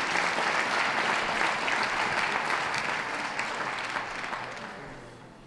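Audience applauding, the clapping dying away after about four seconds.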